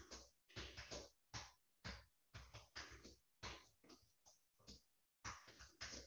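Faint, irregular handling noise: soft taps and rustles, about two or three a second, from a person working with things at a desk, heard through a video-call microphone.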